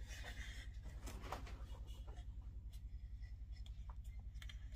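Faint rustling and light clicks of hands handling an opened 40-year-old hard disk drive, its metal casing and head assembly, over a steady low hum.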